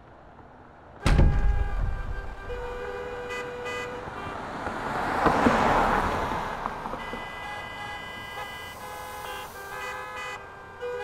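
A deep boom about a second in, then street traffic: car horns sounding in overlapping steady tones, and a car passing close by in the middle, swelling and fading.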